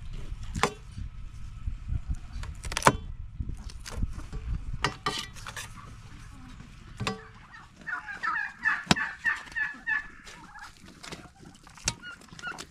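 A farmyard fowl gives a rapid warbling, gobble-like call lasting about two seconds, a little past halfway. Sharp clicks and scrapes from a knife against a metal tray are scattered through the rest, as a baked pumpkin is cut open.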